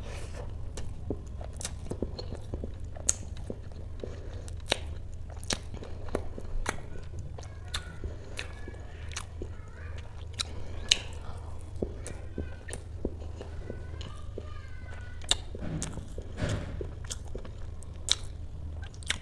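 Close-up chewing of a mouthful of soft, spongy dhokla, with sharp wet mouth clicks and smacks scattered throughout. A steady low hum sits underneath.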